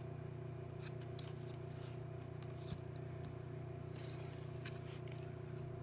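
Trading cards being handled and slid past one another: faint, scattered ticks and light scrapes over a steady low hum.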